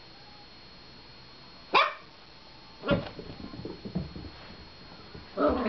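Shetland sheepdog barking: a single sharp, high yelp about two seconds in, a bark about a second later followed by softer small sounds, and a louder burst of barks near the end.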